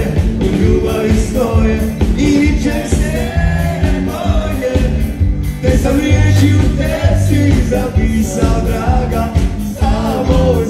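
Live rock band playing: a man singing into a microphone over electric guitar, drums and keyboards, heard through the PA.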